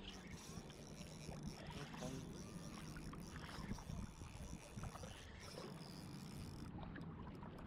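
Water lapping and splashing against the plastic hull of a sit-on-top kayak on choppy water, with a few light knocks.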